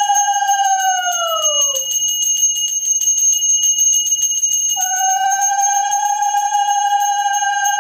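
A worship handbell rung rapidly and continuously while a conch shell is blown in long notes. The first note sags in pitch and dies about two seconds in, and a second starts near five seconds.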